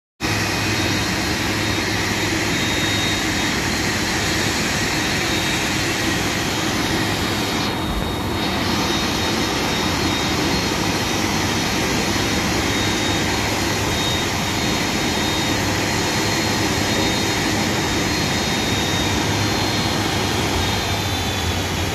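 Jet turbine running steadily: a loud, even rush with a thin high whine over it.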